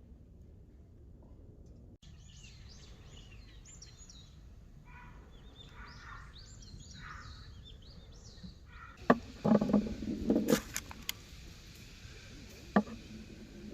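Small birds chirping and calling repeatedly. About nine seconds in come several loud, sharp knocks and clatters, with one more near the end.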